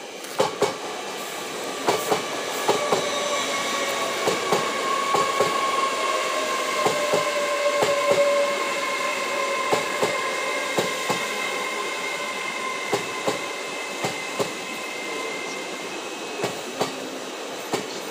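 LNER Azuma (Hitachi Class 800-series) express train running past, its wheels clicking in pairs as each bogie crosses the rail joints, over a steady rumble and a high whine.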